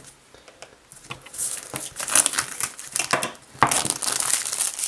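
Clear plastic shrink-wrap being pulled and peeled off a phone box, crinkling. A few faint ticks in the first second, then the crinkling starts about a second in and is loudest over the last second or so.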